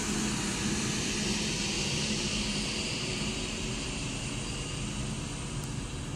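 Avanti West Coast passenger train rolling past along the platform: a steady rumble of wheels and running gear with a high hiss, slowly getting quieter.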